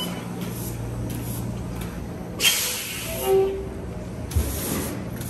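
A San Francisco Muni trolleybus on the 45 Union-Stockton line, its steady low hum broken by two hisses of air, one about two and a half seconds in and one near the end, and a low thump a little after four seconds.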